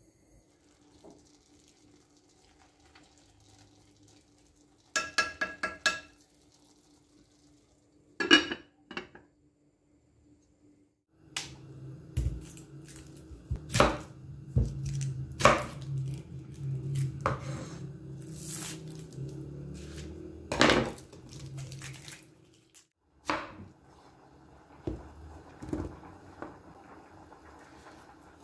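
A glass lid clinks and rings a few times as it is set onto a glass cooking dish about five seconds in, with another clink a few seconds later. Then a chef's knife trims and halves an onion on a wooden chopping board, with repeated knocks of the blade against the board.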